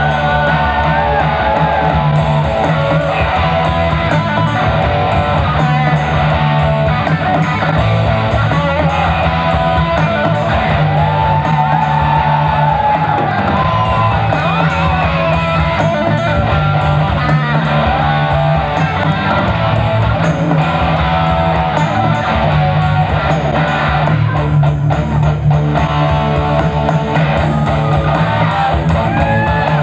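Live rock band playing with amplified electric guitar, bass guitar and drum kit, a lead guitar line with bending notes over the top.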